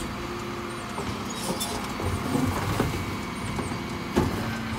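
Terberg OmnIDEL electric bin lifters on a Dennis Elite 6 refuse lorry lifting and tipping two wheelie bins into the hopper, over the lorry's steady running hum. A knock about four seconds in as the bins tip.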